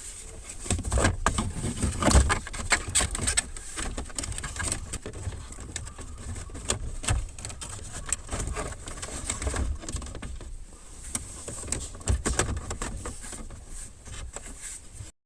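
Irregular clicks, taps and knocks of small parts being handled, such as screws and dashboard trim pieces, with a few louder knocks.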